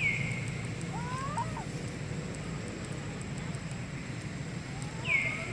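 A bird calling: short, high calls that slide down in pitch and briefly hold, one at the start and another near the end. About a second in there is a fainter, wavering call, all over a steady low background rumble.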